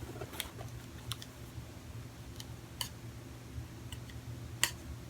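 Scattered light clicks and taps, about six over a few seconds, from handling and opening a plastic bronzer compact, over a low steady hum.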